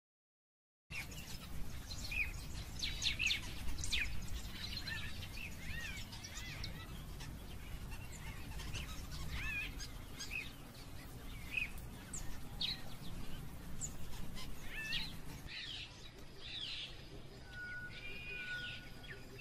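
Many short, high, bird-like chirping calls over a low steady rumble, starting about a second in. Near the end a brief steady whistle-like tone joins them.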